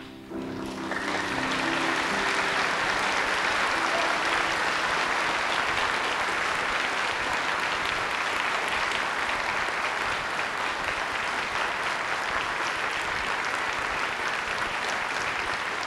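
Audience applauding steadily; the piano's last held chord dies away in the first couple of seconds as the clapping swells.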